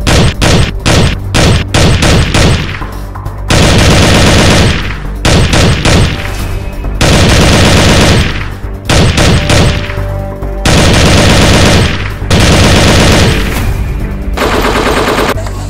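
Automatic gunfire, most likely dubbed-in film sound effects. Rapid single shots come first, then several long bursts of about a second each with short pauses between them.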